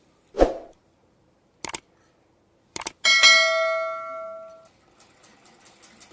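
Subscribe-button sound effect: a thump, two quick clicks, then a bell dinging once and ringing out for over a second. Near the end a hand-cranked sewing machine ticks faintly and rapidly.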